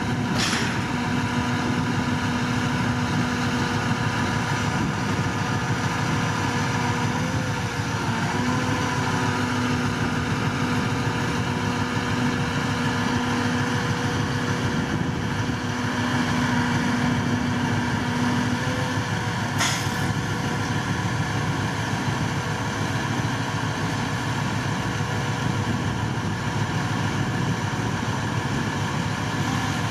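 Heavy crane truck diesel engine running steadily with a constant hum, the hum wavering briefly about eight seconds in. Two short high hisses, one near the start and one about two-thirds through.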